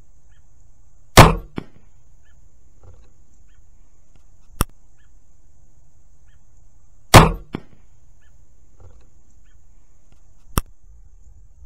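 Barnett Recruit crossbow firing twice, about six seconds apart. Each shot is a loud, sharp crack of the string released, followed a fraction of a second later by a smaller smack of the bolt striking the target 25 yards away. A single short sharp click comes a few seconds after each shot.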